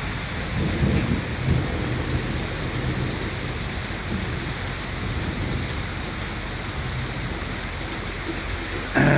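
Steady heavy rain falling in a thunderstorm, with a low rumble of thunder in the first second or two.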